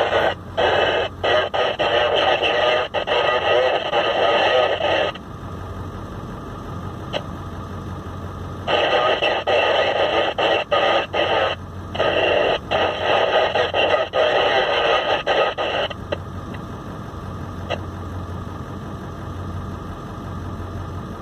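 Two-way radio in the vehicle cab: long stretches of hissy, garbled transmission that cut on and off abruptly, three times, over a low steady hum.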